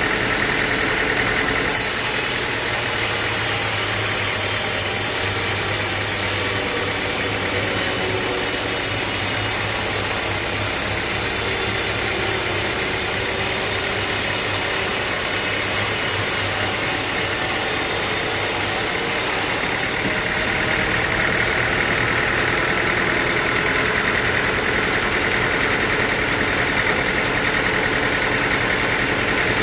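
Sawmill machinery running steadily, an engine-like hum under a bright hiss. The high hiss grows stronger about two seconds in and eases again about twenty seconds in.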